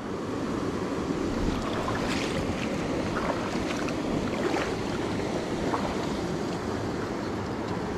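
Steady rush of a small mountain creek running over rocks, with a few faint ticks and splashes in it.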